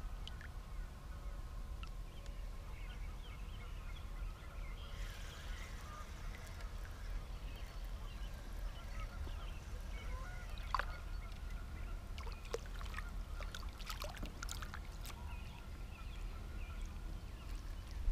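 Faint honking calls of distant waterfowl over a low steady rumble, with a few light clicks and knocks in the second half.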